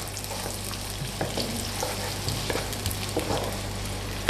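Chopped garlic and onion sizzling in hot oil in a non-stick wok, stirred with a wooden spatula that taps and scrapes against the pan every so often.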